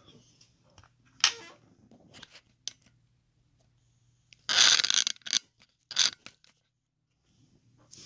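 Handling noise from small brass lock parts on a wooden pinning tray: a few sharp clicks and a louder rustling scrape about halfway through, as a pin stack is taken out of a disassembled padlock cylinder.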